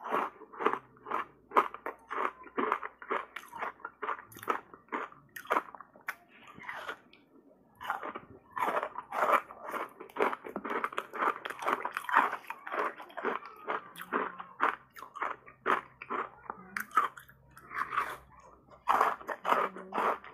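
Crunching and chewing of a block of reshaped ice coated in matcha tea powder, bitten off in big bites and crushed between the teeth: a dense run of sharp crunches, dropping away for a couple of seconds about a third of the way in.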